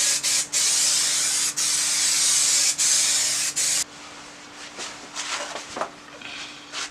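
Aerosol spray adhesive hissing from a can in one long spray with a few brief breaks, cutting off about four seconds in; quieter rustling of the headliner material follows.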